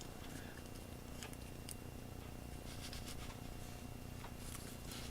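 Faint, scattered small clicks and rustles of fingers handling a cassette tape splice and folding over the clear adhesive tape, over a low steady hum.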